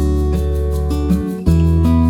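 Background music led by a strummed acoustic guitar, its chord changing about one and a half seconds in.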